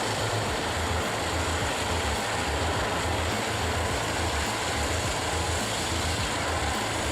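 Large industrial wood chipper running steadily: a continuous dense mechanical noise of engine and chipping, with a low, uneven throb underneath.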